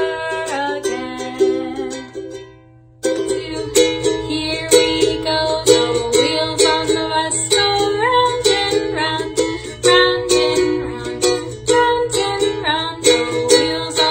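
Music of a strummed and plucked string instrument with a regular beat. It dies away about two seconds in, pauses briefly, and starts again about three seconds in.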